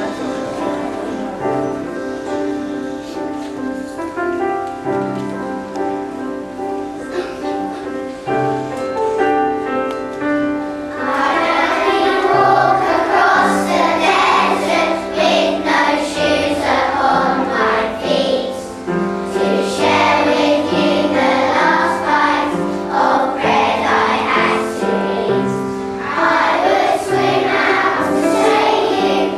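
Instrumental introduction with steady sustained notes, then a choir of young children singing a song together over the accompaniment, starting about eleven seconds in.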